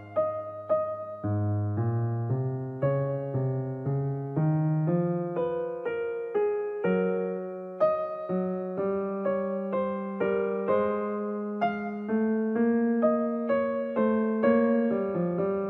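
Background piano music: single notes and chords struck one after another at an unhurried pace, each note fading before the next.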